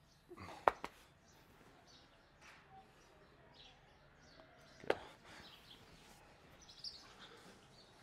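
Quiet stable ambience with faint bird chirps scattered through it. Two sharp clicks stand out, one under a second in and one about five seconds in.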